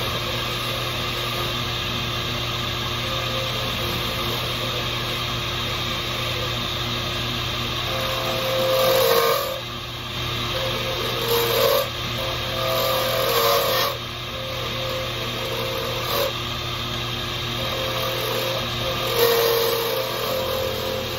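A power tool's motor running steadily, with five louder passes of one to two seconds, each bringing a higher tone and a hiss, as the tool cuts into a piece of deer antler.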